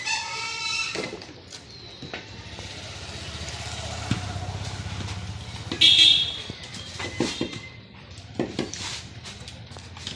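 Busy street noise: a motor vehicle running past, swelling and fading over several seconds, with a short horn-like tone at the start and a loud sharp high-pitched burst about six seconds in. Scattered knocks follow.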